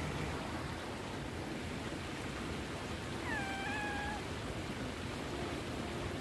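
A cat meows once, about a second long, dropping in pitch at the start and then holding steady. Under it is a steady rush of falling water.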